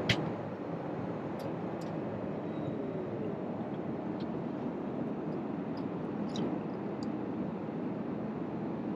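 Steady rushing cabin noise inside a passenger airliner, with a sharp click right at the start and a few faint ticks.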